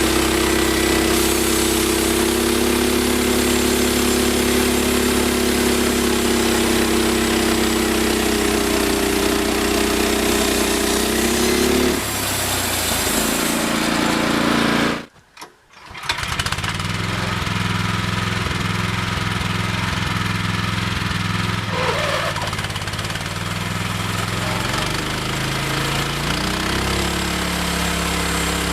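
Small engine of a homemade band sawmill running steadily; its pitch drops about twelve seconds in, the sound cuts out for about a second a little later, then it runs on at a lower, steady pitch.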